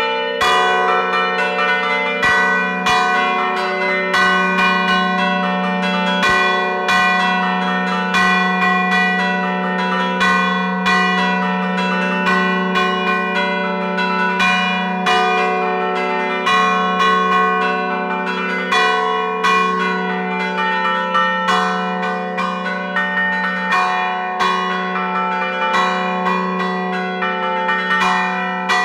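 Three church bells tuned F#3, A3 and B3, the largest cast in 1851 by Vallino of Bra and the other two in 1820 by Gio Bertoldo, struck by hand with their clappers in a fast, rhythmic battagliata peal. The strikes follow each other so closely that the bells ring together without a break over a steady low hum from the largest bell.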